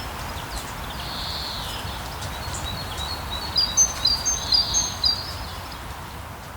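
Steady rain hiss with small birds chirping over it; about halfway through, a quick run of high whistled notes is the loudest sound, and the whole begins to fade near the end.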